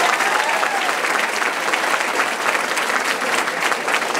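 Audience applauding: steady clapping of many hands.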